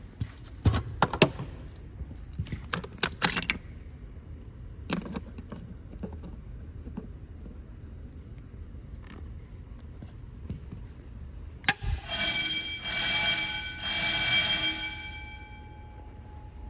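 Metallic jangling and clicks of handling for the first few seconds. About twelve seconds in there is a sharp click, then a Wheelock motor fire alarm bell rings for about three seconds in two or three surges and dies away as it is tested.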